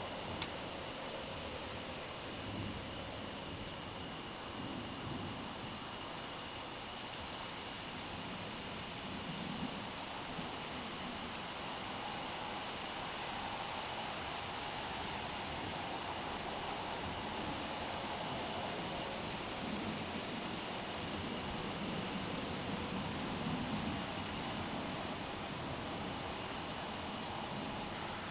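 Night insect chorus of crickets: a steady, unbroken high trill, joined every so often by short, higher chirps.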